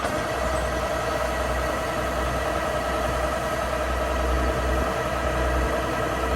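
Kubota rice combine harvester running steadily: a low engine rumble with an even whine from the machinery on top.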